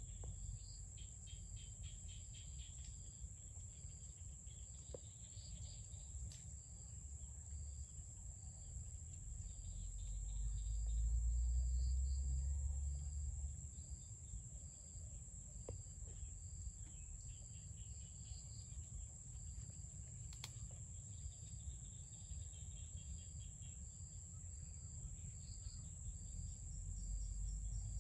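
Insects calling: a steady high-pitched trill, with short chirps repeating at an even pace over it. A low rumble swells about ten seconds in and fades a few seconds later.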